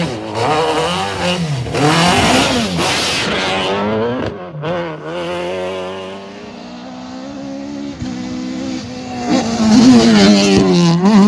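Ford Escort Mk2 rally cars at full throttle on a stage. First one engine revving hard, its note rising and falling several times through a corner. Then a second car's engine grows from a distance and rises loudest as it passes close near the end.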